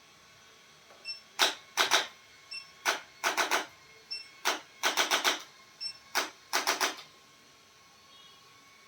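Sharp mechanical clicks from a chiropractic adjusting instrument, about fifteen in all. They come in four rounds, each a single click followed by a quick run of two to four, from about a second and a half in until about seven seconds.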